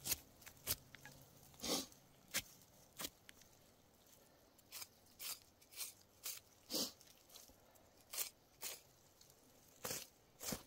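Knife cutting and hide tearing as a black bear is skinned: a string of short, sharp, irregularly spaced slicing and ripping sounds.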